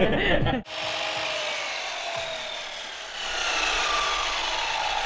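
A power saw running nearby, its motor whine falling slowly in pitch twice as it winds down, over an even hiss.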